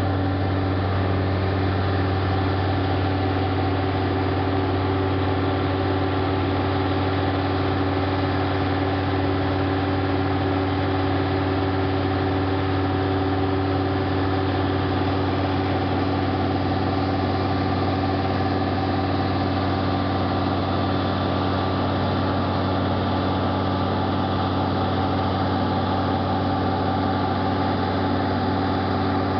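An engine idling steadily: a constant low hum with a few steady higher tones, never changing in speed.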